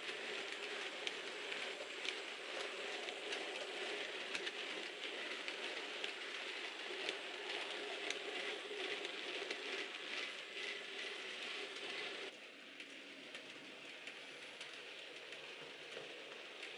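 Model railway goods train of vans and wagons rolling along the track: a steady rolling hiss peppered with light clicks from the wheels. About twelve seconds in it drops suddenly to a quieter, fainter rolling.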